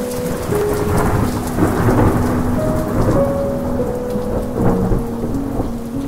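Steady rain with a low rolling rumble of thunder that swells through the middle and eases near the end.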